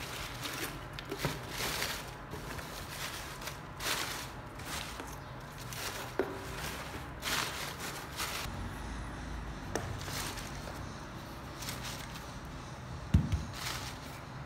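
Dry banana leaves rustling and crackling in irregular bursts as hands rearrange them in a cardboard box, with a single dull thump near the end.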